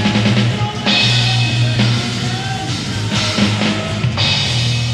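Rock music with a drum kit and bass guitar: a held low bass note under the beat, and crash cymbal hits about a second in, around three seconds in and just after four seconds.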